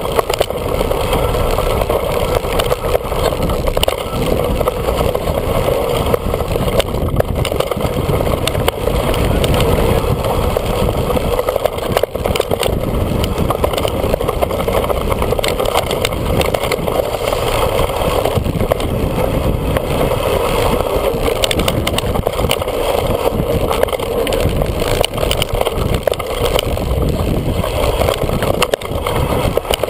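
Steady rattle and rumble of a mountain bike descending a rocky trail: tyres running over stone, the frame and chain clattering, with wind noise on the microphone.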